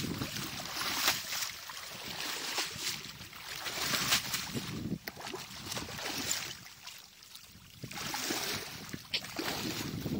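Muddy shallow water splashing and sloshing in uneven surges as people wade through it and drag a cast net, with a quieter stretch about two-thirds of the way through.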